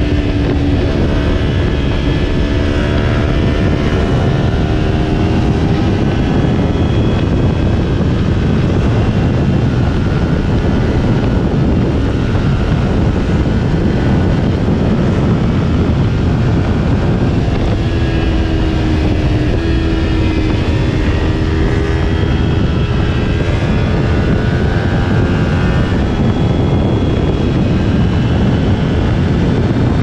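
2020 Kawasaki Ninja 400's parallel-twin engine running at highway cruising speed, heard under heavy wind rush and road noise. Its note wavers slightly twice with the throttle.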